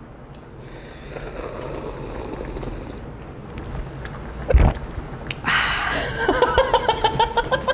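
Broth slurped from a bowl held right up to a lapel microphone, a soft hiss lasting about two seconds. A single low gulp follows about four and a half seconds in, then a woman laughs.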